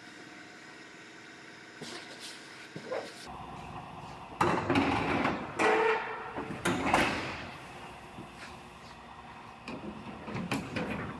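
Hand work on a truck bed panel: rustling and scraping with a few sharp knocks, loudest about four and a half and seven seconds in, after a few seconds of faint steady hum.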